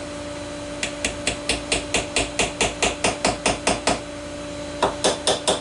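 Hammer tapping on wood, driving glued wooden dowels home into drilled holes in a bench joint: a quick run of about fifteen evenly spaced blows, roughly five a second, a short pause, then four more blows.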